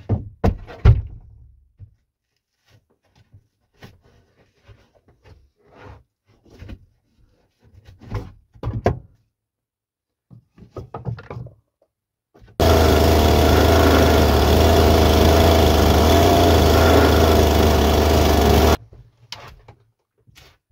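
Boards knocked and handled, a string of separate knocks and clatters, then a power tool runs steadily for about six seconds and cuts off suddenly, followed by a few more knocks.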